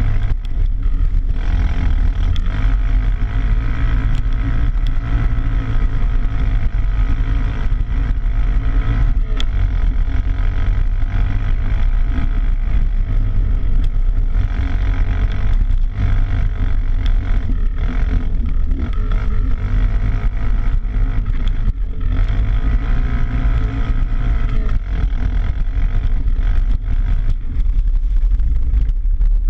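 ATV engine running hard and revving up and down as it drives through muddy water, with water splashing and spraying against the machine.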